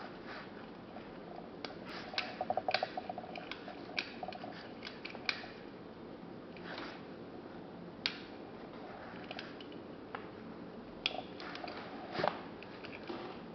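Angelus quarter-repeating chronograph pocket watch being worked by hand: a run of small metallic clicks and light strikes, with a quick cluster of ringing strikes a couple of seconds in and a few sharper single clicks later on.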